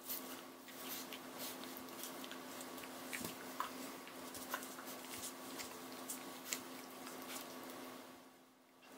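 Puppy play-biting an adult dog: rustling of fur and towels with small sharp clicks of teeth and paws, over a steady low hum. It grows quieter about eight seconds in as the dogs settle.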